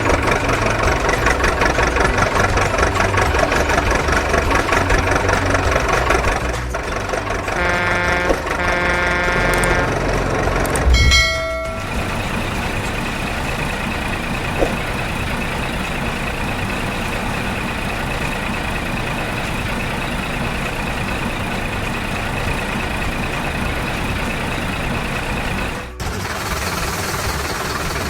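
Truck engine sounds, likely dubbed effects for a toy truck: a rough rhythmic engine for the first six seconds, a run of pitched tones around eight to ten seconds in and a short loud blast about eleven seconds in, then a steady running sound with a thin high whine, briefly cut near the end.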